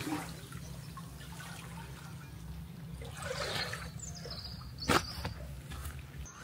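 Liquid pouring and trickling at a low level, with a single sharp click about five seconds in.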